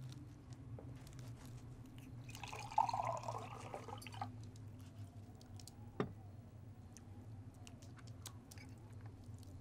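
Liquid poured into a glass for about two seconds, starting about two seconds in, over faint clinks of knife and fork on a plate; one sharper clink of cutlery about six seconds in. A low steady hum lies underneath.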